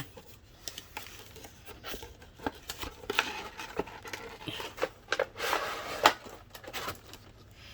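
An action-figure box being opened by hand: the cardboard flap eased open and the plastic tray slid out, with scattered scrapes, crinkles and clicks. The loudest is a sharp click about six seconds in.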